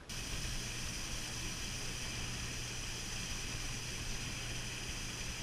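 Small tour boat's motor running steadily under way: a low even hum under a loud, steady high-pitched hiss. It cuts in suddenly at the start.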